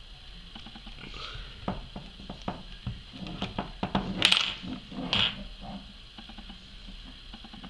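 Small clicks, taps and scrapes of a Phillips screwdriver working out the safety screw of an airsoft 1911 pistol, with the parts handled in between. Two louder rasping noises come about four and five seconds in.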